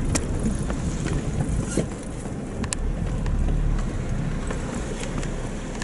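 Car engine and tyres rumbling, heard from inside the cabin, as the car drives across wet sand and a shallow river on a beach, with a few sharp ticks.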